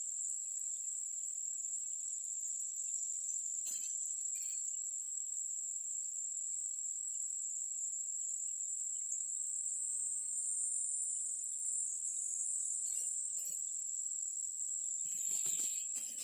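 Insects in a forest, crickets or the like, keeping up a steady, unbroken high-pitched drone. There are a couple of faint clicks about four seconds in, and a louder brief rustle near the end, just as the drone cuts off.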